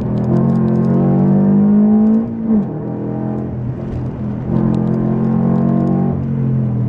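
Toyota GT86's 2.0-litre flat-four engine heard from inside the cabin, pulling hard with the revs climbing for about two seconds, then dropping sharply and climbing again to a steadier pitch.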